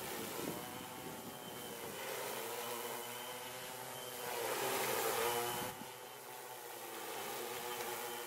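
Multirotor drone's electric motors and propellers buzzing in flight, the pitch drifting up and down as the motors change speed to move and hold it in the air. It gets louder for about a second and a half around halfway through.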